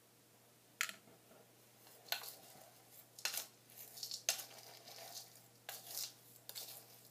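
A spoon clinking and scraping in a bowl of dry hamster food mix as it is stirred and scooped: a string of short, irregular clicks about a second apart.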